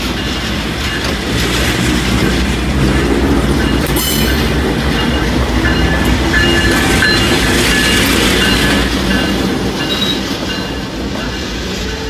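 A GE Dash-9 diesel-electric locomotive rolls slowly past at close range, its diesel engine running with a steady low rumble while the wheels click over the rail joints. A thin high wheel squeal comes in midway. The sound peaks as the locomotive passes and fades as it moves away near the end.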